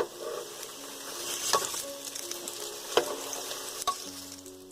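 Spinach pakoras deep-frying in hot oil, a steady sizzle, with a few sharp taps of a utensil against the pan as they are turned over.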